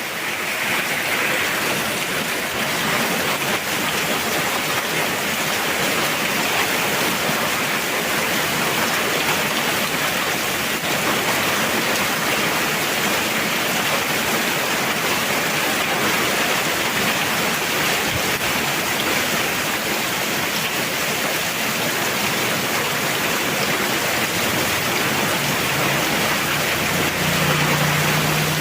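Heavy rain falling steadily in a dense, even hiss. A faint low hum joins in near the end.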